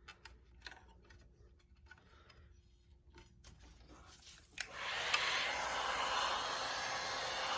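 Faint clicks and rustles of vinyl wrap being pressed and rolled with the fingers, then an electric heat gun switches on about four and a half seconds in and runs with a steady blowing hiss.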